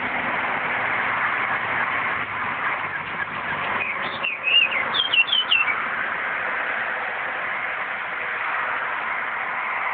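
A bird gives a short run of squawky, gliding calls about four seconds in, over a steady hiss of background noise.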